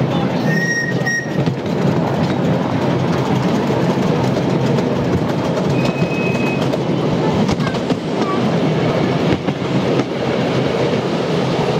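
Miniature railway passenger train running along the track, its wheels clattering on the rails with a steady rumble from the carriages.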